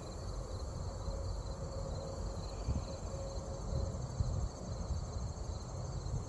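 Field insects, crickets or similar, trilling in a steady high-pitched pulsing chorus over a constant low rumble on the microphone.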